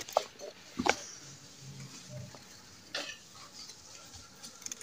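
Small kitchen knife shaving thin slices off a knob of ginger held in the hand: quiet cutting and scraping, with a few sharp clicks, just before a second in and again near three seconds.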